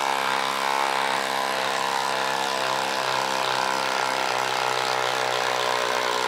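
DeWalt 12V Xtreme impact driver hammering steadily on speed 3 as it drives a 6-inch lag screw into a log, a continuous rapid rattle without letup.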